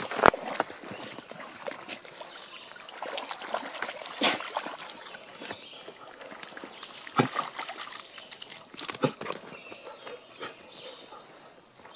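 Dogs wading in a shallow pond: water sloshing and trickling around their legs, with a few sharper splashes spaced a few seconds apart, the loudest just after the start.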